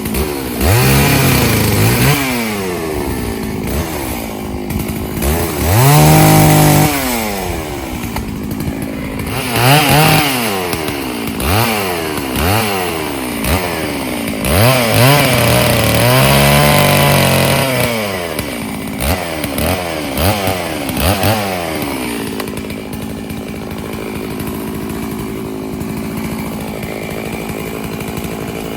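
Stihl chainsaw bucking firewood, its two-stroke engine revved up and dropping back again and again, with two longer stretches held high under load. It settles to a steadier, quieter run near the end.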